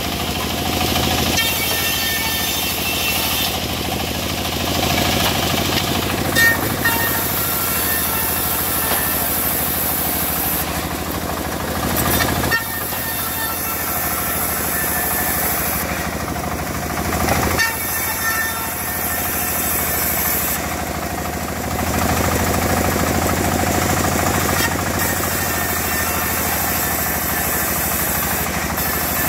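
Engine-driven wood saw running steadily and cutting teak timber, with small rises and dips in level as the load changes.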